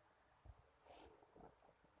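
Near silence, with a few faint soft knocks and a brief faint rustle about a second in.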